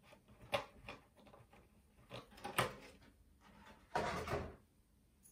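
A few small clicks and knocks, then a short scraping rustle about four seconds in: handling noises in a small room.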